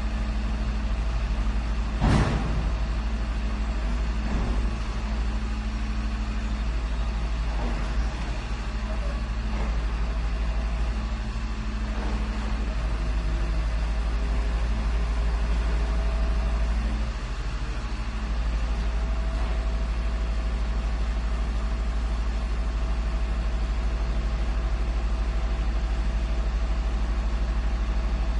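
Garbage truck's engine running steadily with a low drone, with a sharp knock about two seconds in and a few lighter clanks after it.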